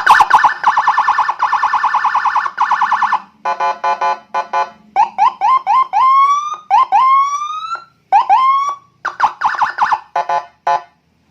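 Custom electronic police-escort siren, a 45-watt siren module driving a 25-watt speaker, switched on and stepping through its tones. It opens with a fast warble for about three seconds, then short stuttering bursts, then a string of rising whoops, then stuttering bursts again.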